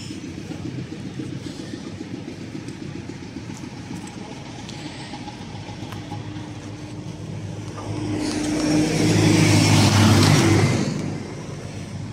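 Roadside traffic: a steady low engine hum, then a vehicle approaches and passes close by, growing loud about eight seconds in and fading again a few seconds later.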